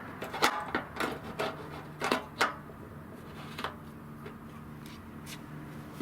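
A quick run of sharp clicks and knocks, about seven in the first two and a half seconds and one more a second later, then a few faint ones over a low steady hum: parts being handled and fitted while the pressure washer is put together.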